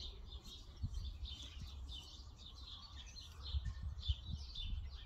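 Birds chirping: many short, high chirps, scattered through the whole stretch, over a low rumble.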